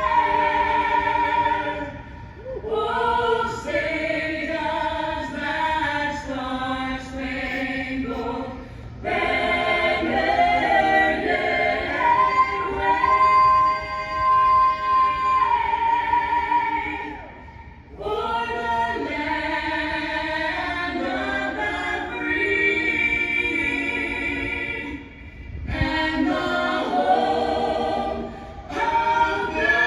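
Several voices singing together in harmony, choir-like and a cappella, in long held phrases with a few short pauses between them.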